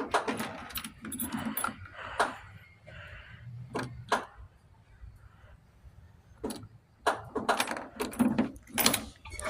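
Irregular clicks and jangling of a keyring as the ignition key of a Craftsman GX75 lawn tractor is worked, with no engine cranking, which the owner takes for a dead starter. The clicks come in two clusters, with a quieter stretch between them.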